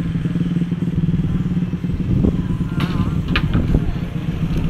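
A small engine idling steadily with a fast, even firing beat, and a few brief high chirps about three seconds in.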